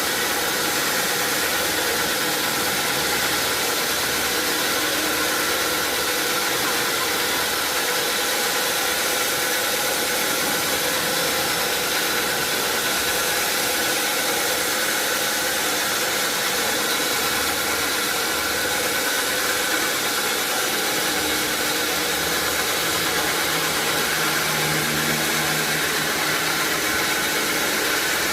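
Sawmill machinery running steadily: a constant, even mechanical noise that does not change in level, with a faint low hum joining it for a few seconds near the end.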